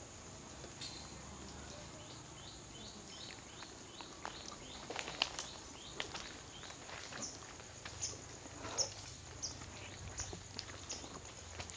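Faint, high squeaking chirps from small animals, each one short and falling in pitch, scattered at first and then coming in quick runs of several from about four seconds in.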